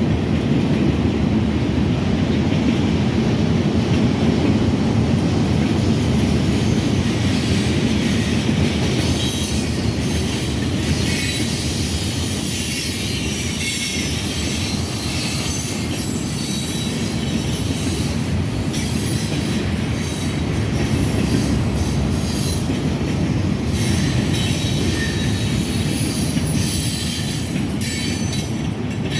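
Freight train cars rolling past, steel wheels clattering on the rails and squealing in high, scattered squeals.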